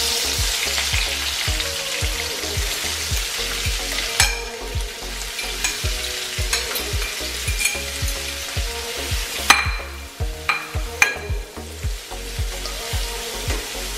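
Chopped onion and peppers sizzling in hot oil in a frying pan, the hiss brightest as they go in and then settling. A fork stirring them clicks against the pan several times.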